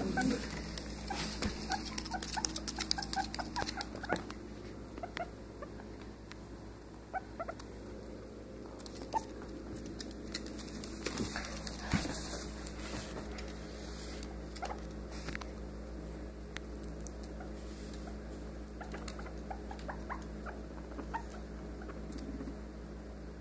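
Guinea pig's feet pattering and claws clicking on a hardwood floor, busiest in the first few seconds, then scattered steps with a few sharper taps, along with small short squeaks from the animal.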